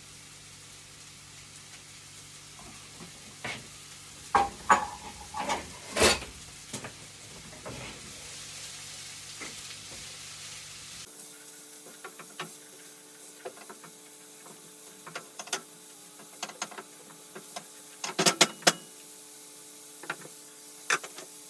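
Chopped onions and garlic sizzling in hot oil in a frying pan, with a utensil knocking and scraping against the pan as they are stirred, the loudest knocks in clusters a few seconds in and again near the end.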